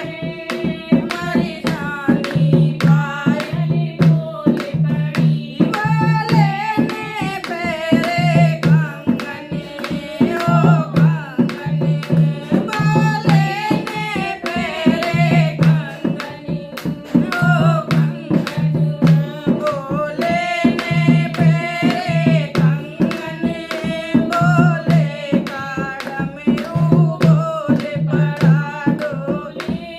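Hindi devotional song (bhajan) with a singing voice over drum accompaniment keeping a steady beat.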